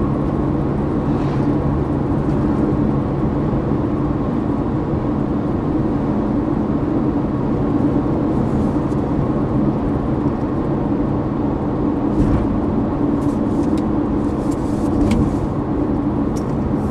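Car cruising on a paved road, heard from inside the cabin: steady engine hum and tyre noise, with a few faint ticks in the second half.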